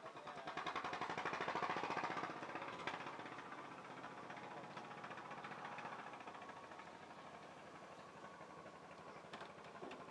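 A small engine running with a fast, even pulse, swelling louder for a second or two near the start and then fading to a fainter steady run.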